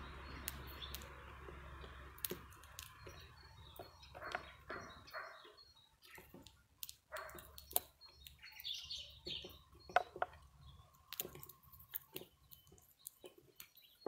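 Irregular sharp clicks and cracks of a European greenfinch husking black sunflower seeds on a wooden feeder tray, with short high chirps of small birds in between.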